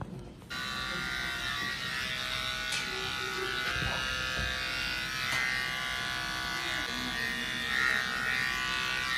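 Corded electric pet hair clippers switched on about half a second in, then running with a steady buzz as they shave a Persian cat's fur.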